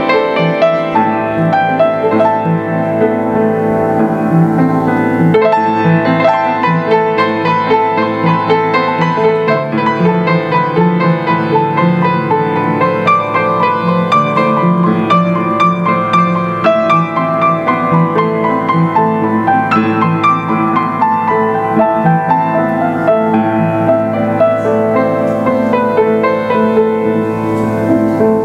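Solo grand piano played live, a continuous instrumental piece of chords and melody at a steady level.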